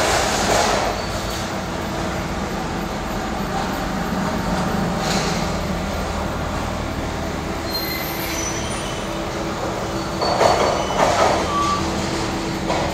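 A gas (LPG) forklift working in a warehouse: a steady engine hum, with louder noisy bursts at the start, about five seconds in and again near the end.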